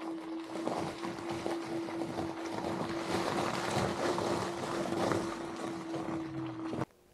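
Tesla Model X tires crunching and splashing over slushy snow and wet gravel as the car rolls slowly backward, with a steady hum underneath. The sound cuts off abruptly near the end.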